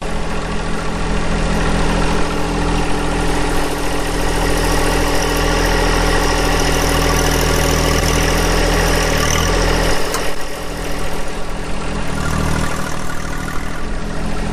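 A John Deere 1025R compact tractor's three-cylinder diesel engine running steadily. About ten seconds in, its low rumble eases off.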